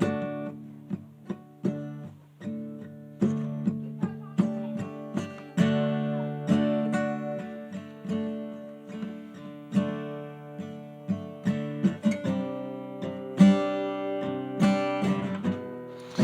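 Acoustic guitar playing, plucked and strummed chords.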